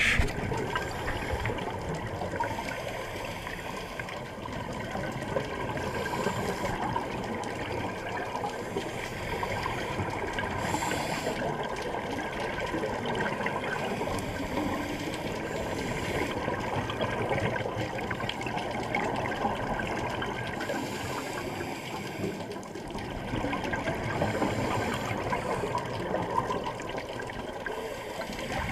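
Sea water rushing and splashing in a steady, continuous wash.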